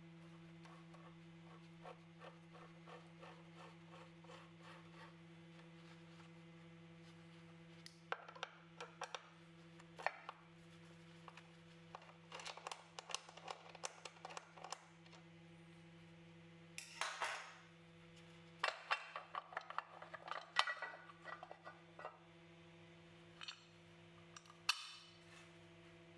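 Hand tools working the screws out of a motorcycle's timing belt cover. A quick run of light ticks comes in the first few seconds, then scattered metallic clicks and clinks as the driver, the screws and the cover are handled, over a steady low hum.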